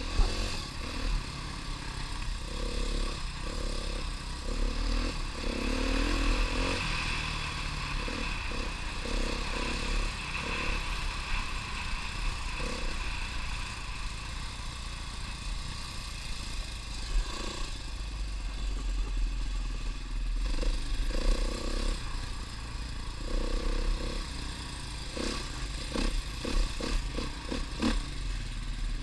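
A trail bike's engine running as the bike is ridden along a rough dirt track, under a steady rush of noise. Short knocks from the bike clattering over bumps come near the end.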